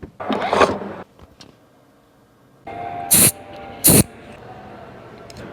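Mercedes-AMG C43 engine and exhaust. A loud burst in the first second is followed by a short lull. The car then fires into a steady running sound, broken by two loud, sharp bangs about three and four seconds in.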